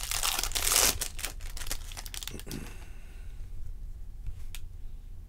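Foil wrapper of a Topps jumbo trading-card pack being torn open and crinkled, a dense crackling over the first couple of seconds that then dies down to a few light clicks as the cards are handled.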